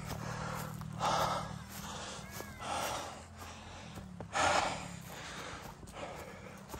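A person breathing hard and out of breath from climbing a steep hill on foot: a few heavy exhalations a second or two apart, the loudest about four and a half seconds in.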